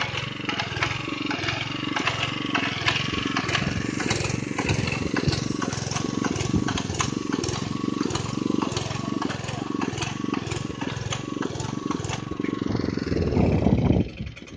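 Graco airless line-striping machine running while it sprays runway paint: its small engine and paint pump run steadily with a regular pulse about one and a half times a second and many fine ticks. The sound drops off suddenly near the end.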